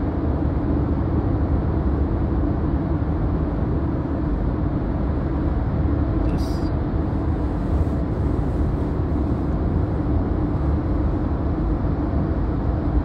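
Steady road and engine rumble inside a moving car's cabin, with one small click about six seconds in.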